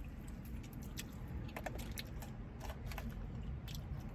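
Scattered small crisp clicks and crackles of eating crispy fried chicken and handling the food and its packaging, over a low steady rumble.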